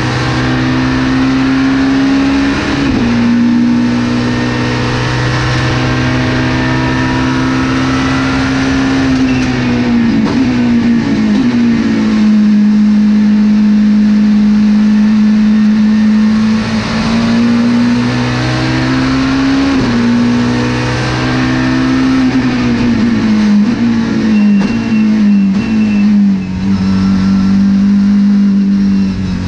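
Volvo S40 TWR Super Touring race car's five-cylinder engine under hard load, heard from inside the cockpit. Its note holds high and steps with each gear change, drops through a series of downshifts about ten seconds in, then climbs again and shifts repeatedly near the end.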